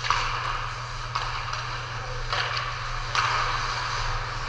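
Ice skate blades scraping and cutting across rink ice in four separate hissing strokes, about one a second, over a steady low hum.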